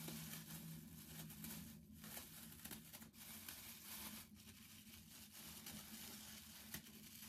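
Faint crinkling and rustling of a thin plastic shower cap being pulled on and adjusted over the hair.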